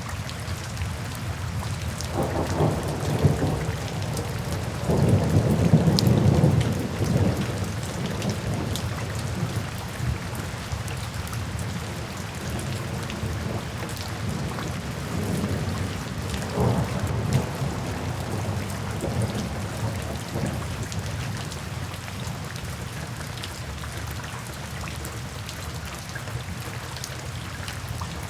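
Steady rain falling, with rolling thunder rumbling in several low surges, loudest about five to seven seconds in.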